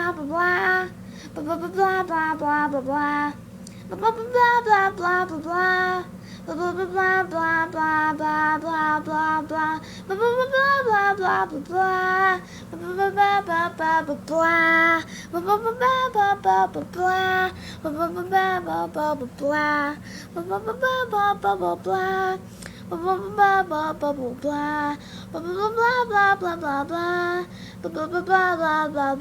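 A child's high voice singing short, repetitive phrases over and over, each phrase rising and falling in pitch, with brief breaks between them.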